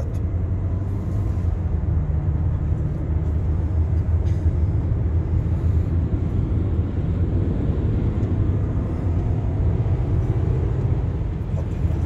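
Steady low rumble of a car driving along an open road, heard from inside the cabin: engine and tyre noise.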